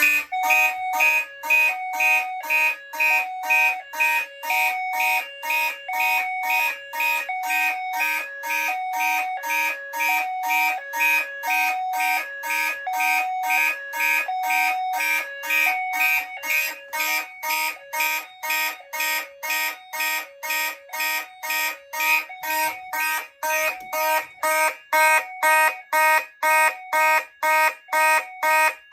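Several fire alarm notification appliances sounding together during a system alarm test set off by a key test switch. They make a fast, even pulsing with a high-low two-tone alternation, about one high-low cycle a second, over steady higher tones. The mix of tones shifts after about 24 seconds.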